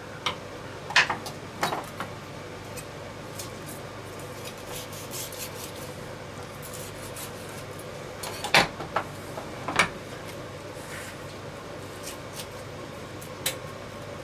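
Poultry shears and a chef's knife clicking and knocking against a wooden cutting board while a roast duck is carved apart at the leg joints. A few sharp knocks are scattered through it, the loudest two a little past eight and near ten seconds in.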